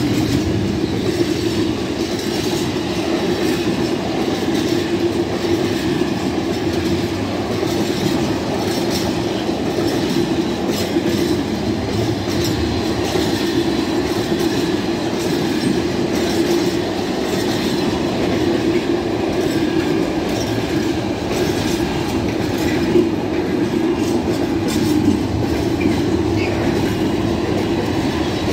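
Container freight train's wagons rolling past close by: a steady, loud rumble and clatter of steel wheels on the rails.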